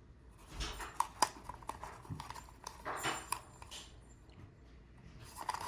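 Faint handling noise of a Rolleicord and its 120 roll film: scattered small clicks and brief rustles of the film's backing paper as its tab is fitted into the take-up spool.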